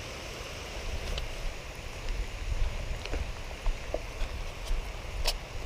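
Steady rain hiss with wind rumbling on the microphone, and a few scattered sharp ticks.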